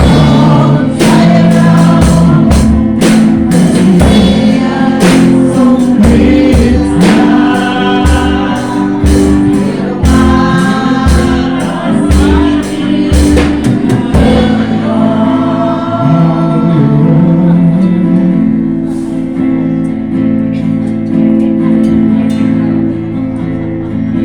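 Gospel worship music: singing over a band with a steady beat. About fourteen seconds in the beat stops and softer held chords carry on under the singing.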